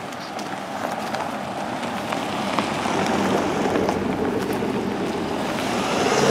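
A car, a dark SUV, approaching along a paved road and passing close by: tyre and engine noise swells steadily and is loudest near the end.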